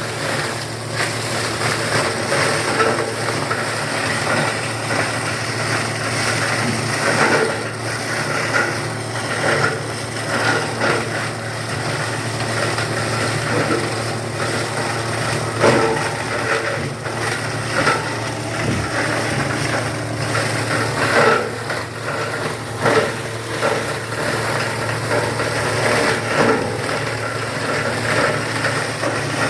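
Paper and cardboard shredding machine running with a steady low hum, its blades chewing through cardboard in irregular louder crunching bursts.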